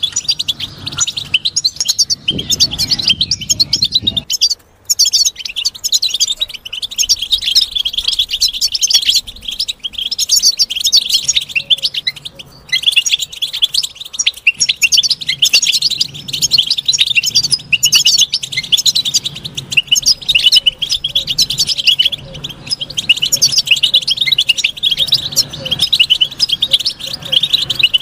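European goldfinch twittering: a fast, continuous run of high chirps and trills, breaking off briefly about five seconds in and again about twelve seconds in.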